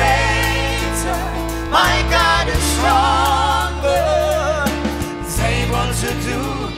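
Live gospel band music, with a man and women singing over the band.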